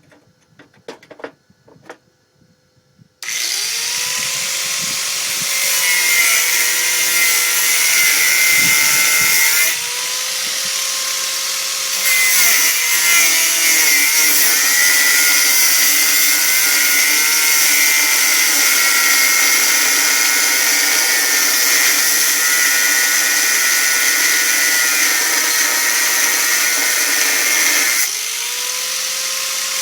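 A few faint handling clicks, then about three seconds in a 4½-inch Drill Master angle grinder cuts into a thick steel bar. It makes a loud, continuous grinding whine whose pitch sags and recovers as the disc is pressed into the cut, and the sound eases twice when the pressure comes off.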